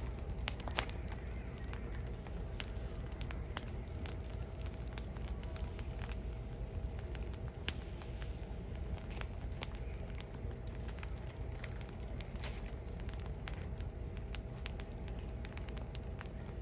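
Firewood burning in an open fire, crackling with irregular sharp pops and snaps over a low steady rumble.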